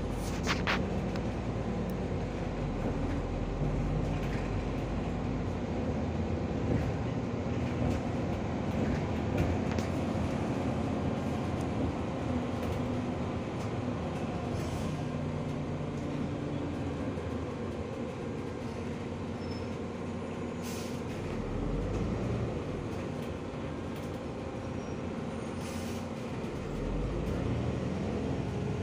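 Interior running noise of a SOR NS 12 city bus on the move: the engine hums steadily, shifting up and down in pitch as the bus speeds up and slows. A few short clicks or rattles come through, the first about a second in.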